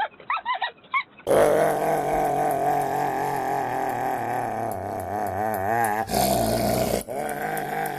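A series of short chirping calls, then after about a second a cut to one long, drawn-out animal call with a wavering pitch, which grows briefly louder and rougher near the end.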